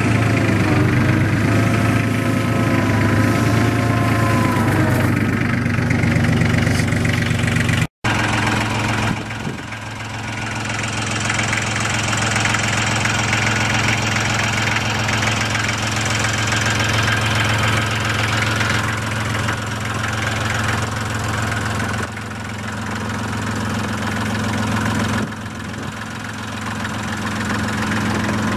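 Nortrac compact tractor engine running steadily throughout, with a brief total dropout about eight seconds in.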